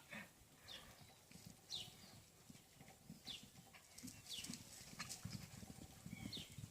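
Faint hoofbeats of a horse being worked, busier in the second half, with a short high chirp repeating about once a second.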